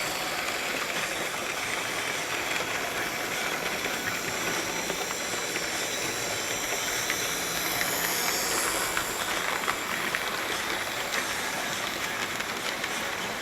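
Freshly serviced Lima OO-gauge Class 31 model diesel locomotive running along the track: a steady whirr of motor and wheels.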